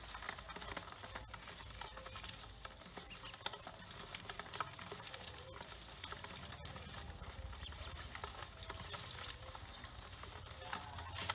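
A crowd of Pekin ducklings in a steel basin, peeping softly while their feet scrabble on the metal in a steady run of small scratching clicks.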